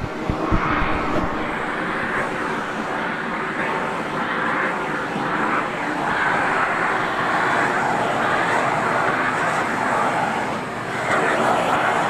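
Vacuum cleaner running steadily, its hose nozzle being drawn over a cat's fur, with a few short knocks in the first second.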